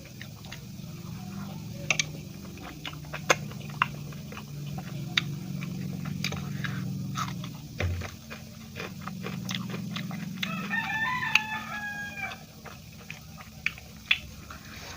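Close-up eating sounds: chewing with many sharp mouth clicks. A rooster crows once in the background, about two-thirds of the way through.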